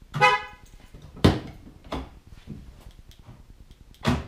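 Ford F-150 power lock actuators clunking in answer to the key fob: sharp clunks a little over a second in, again about two seconds in, and once more near the end, after a brief pitched chirp at the start. The locks responding shows the newly fitted tailgate wiring harness is working.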